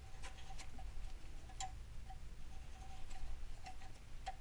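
Faint, irregular small metallic clicks, some with a brief ring, as a helicoil thread insert is wound by its insertion tool into the tapped stud hole of an exhaust manifold flange.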